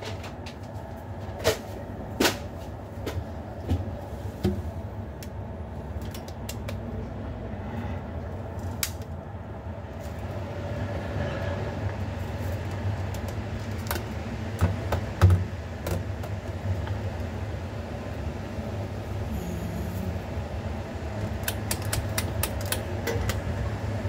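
Small clip-on electric fan running with a steady low hum, with scattered plastic clicks and knocks as its head and clip are handled and adjusted. The loudest knocks come about fifteen seconds in, and a quick run of clicks comes near the end.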